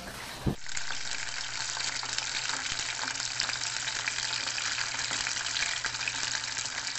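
Starch-coated pieces of marinated octopus deep-frying in hot oil at about 180 °C, giving a steady sizzling hiss. There is a single knock about half a second in.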